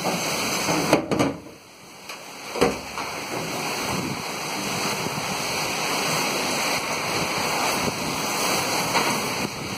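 Heavy rain and strong wind in a storm: a steady rushing noise, with wind buffeting the microphone. A couple of sharp knocks from the phone being handled come in the first few seconds, around a brief drop in the noise.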